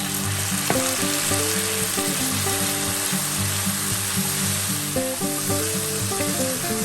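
Food frying in a hot pan, a steady sizzle, with melodic background music.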